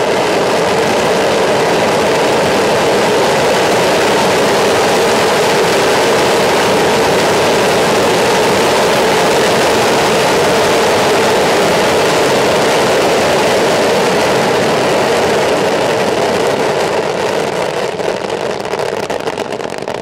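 Fireworks rockets launching en masse from ground racks: one dense, continuous rushing hiss of many rocket motors firing together, tailing off near the end.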